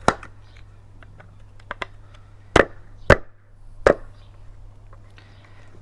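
Hard knocks and clicks of shredder parts being handled and fitted together during assembly, with three loud knocks in the second half among lighter taps.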